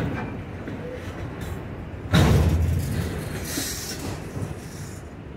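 Freight train of autorack cars rolling past, a steady low rumble of wheels on rail, with one sudden loud bang about two seconds in that fades over a second.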